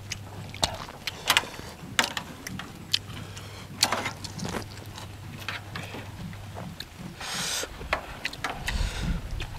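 Eating at a table: metal spoons clicking and scraping against a metal tray of raw duck blood salad, with chewing, as scattered short clicks. A short rush of noise comes about seven and a half seconds in, over a faint steady low hum that fades about two-thirds of the way through.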